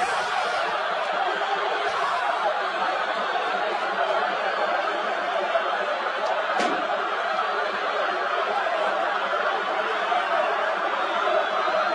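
Football stadium crowd cheering and shouting in celebration of a goal, a dense steady mass of voices.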